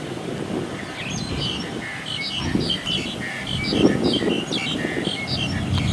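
Small birds chirping, a quick run of short high calls starting about a second in, over the low rumble of a rice combine harvester's engine working in the distance.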